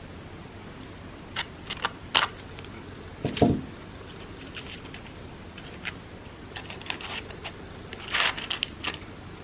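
Crepe paper crinkling and rustling in short, scattered crackles as it is handled, with a louder knock about three and a half seconds in and a quick flurry of crackles near the end.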